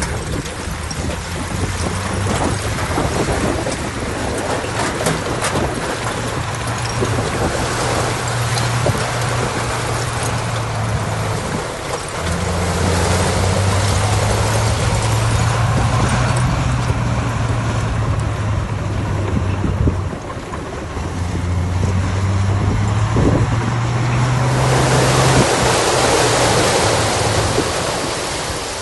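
Heavy diesel earthmoving machinery running and working, with the engine's low hum stepping up and dropping back several times as the load changes. A broad rushing noise underneath swells strongly near the end.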